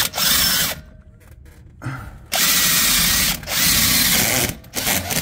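Cordless drill with a half-inch bit reaming out a rusty hub-bolt hole in a steel steering knuckle, run in four bursts of about a second each with short pauses between. The holes are being opened up because of rust and scale, the speaker thinks.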